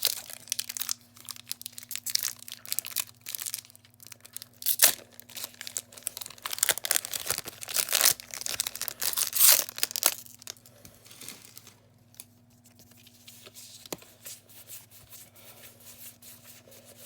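Foil wrapper of a Pokémon TCG booster pack being torn open and crinkled, busiest through the first ten seconds or so, then softer rustling of the pack and cards with a couple of sharp clicks.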